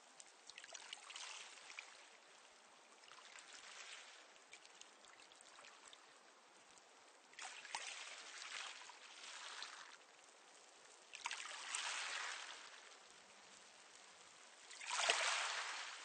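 Small, calm sea waves washing onto a pebble beach, the pebbles clattering finely in each wash. About five washes swell and fade a few seconds apart over a low steady hiss, and the strongest comes near the end.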